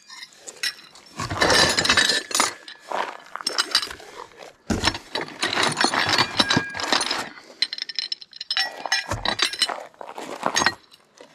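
Steel sawmill parts (threaded leveling feet and brackets) clinking and clattering as they are handled, with irregular clusters of knocks and brief metallic ringing.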